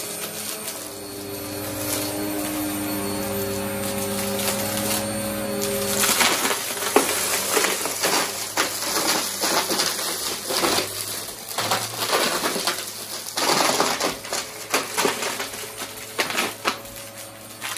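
Upright bagless vacuum cleaner running on carpet with a steady motor hum. From about six seconds in, a dense run of crunching and rattling clicks comes through as it sucks up small hard debris, thinning out near the end.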